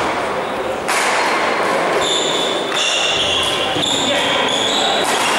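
Badminton doubles rally: rackets striking the shuttlecock, feet on the court, and several short high shoe squeaks on the hall floor from about two seconds in, with echoing hall chatter.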